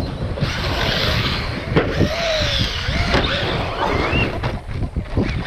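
Wind buffeting the microphone, with the whine of electric RC truck motors rising and falling in pitch as they rev. One climbing whine comes near the end.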